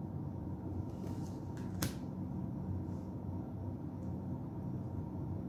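Low steady room hum with one sharp click about two seconds in and a few faint ticks, from tarot cards being handled and laid down on the table.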